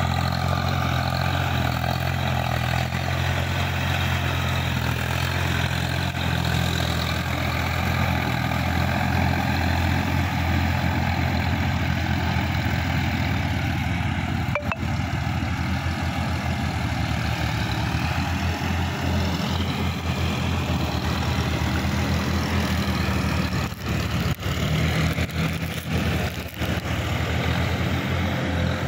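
Swaraj 855 FE tractor's diesel engine running steadily under load as it pulls a rotavator through a flooded paddy field. The level dips briefly a few times near the end.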